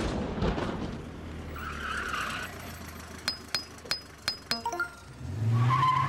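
Intro sound effects: a rush of rain noise, then a quick run of sharp clicks, and near the end a vehicle engine pulling up with a tyre screech as the ambulance arrives.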